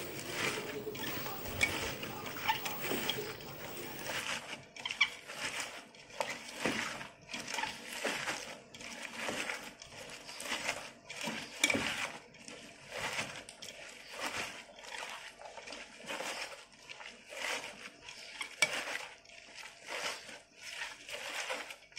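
Chopped, wet banana stem being kneaded and squeezed by hand in a stainless steel bowl, giving irregular wet squeezing and rustling strokes, about one or two a second. The stem is being mashed with salt and turmeric until it softens.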